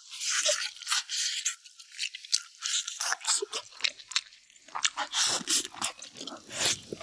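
Close-miked eating: a person chewing and gnawing meat off a braised beef spine bone, a steady run of small wet clicks, smacks and crackles.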